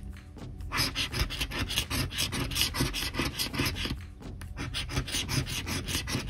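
A coin scraping the silver coating off a scratch-off lottery ticket in quick back-and-forth strokes, pausing briefly near the start and again about four seconds in.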